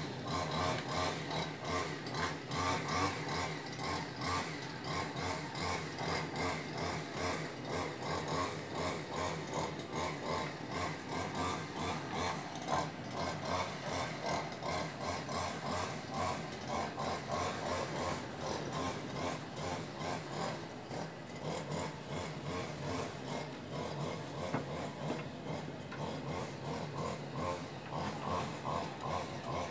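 Continuous rubbing and scratching close to the phone's microphone, like handling noise from the phone being held or moved about with something over it.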